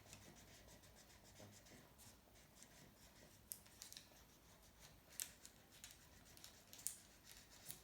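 Faint scratching of a felt-tip marker colouring on paper, in short irregular strokes.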